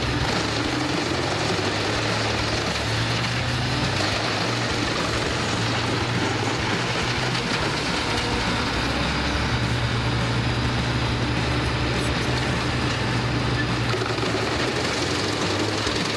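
Wood chipper running steadily, its engine humming under a continuous even noise of the machine at work.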